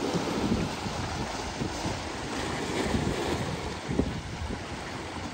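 Strong wind buffeting the microphone, over sea waves washing against the rocks.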